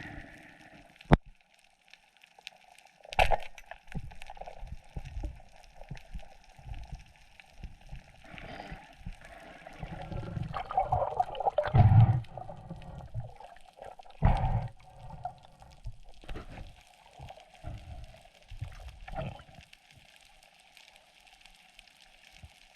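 Water gurgling and sloshing, heard through an underwater camera, with scattered knocks and thumps and a faint steady hum. The loudest surge comes about twelve seconds in.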